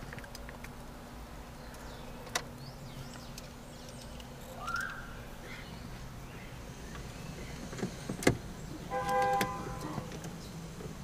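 Car interior with a steady low hum, a few sharp clicks, and a short pitched electronic tone or beep lasting about half a second, about nine seconds in.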